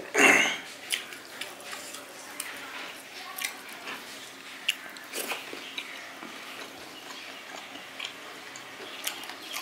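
A person chewing and eating with close wet mouth sounds: scattered smacks and clicks, with a louder brief mouth sound right at the start.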